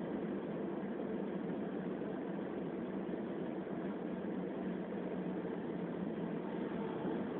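Steady road and engine noise inside a moving car's cabin, heard through a phone's microphone.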